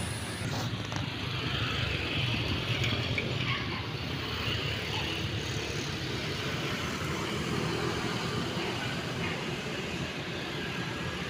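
Street traffic: small motorcycle engines passing over a steady low rumble of road noise.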